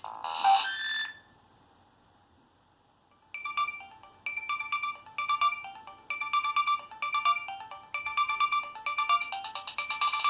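Nokia 6225 cell phone playing its preloaded ringtones. One tune ends about a second in, and after a pause of about two seconds another begins: a short phrase of beeping notes repeated about once a second.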